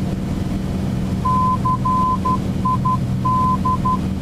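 VOR navigation beacon's Morse identifier: a steady tone keyed dash-dot-dash-dot, dot-dot, dash-dot-dot, spelling C-I-D, the ident of the Cedar Rapids VOR, starting about a second in. Under it runs the steady drone of the Bonanza's piston engine and propeller in the cockpit.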